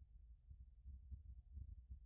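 Near silence: a faint low rumble with a thin, faint steady high tone.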